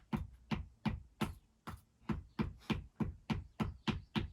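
A hand tool knocking on stonework in a steady rhythm of sharp strikes, about three a second.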